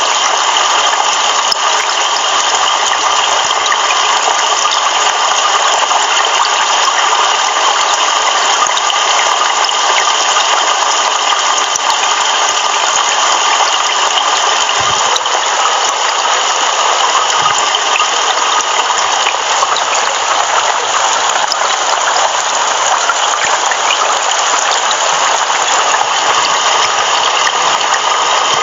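Heavy rain pouring, a steady, unbroken hiss.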